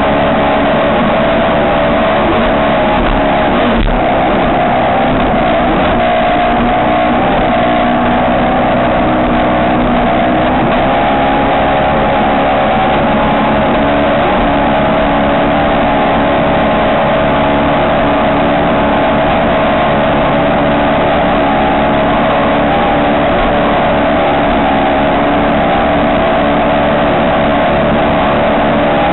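Ski race boat's engine running loud and steady at high revs, with only slight changes in pitch.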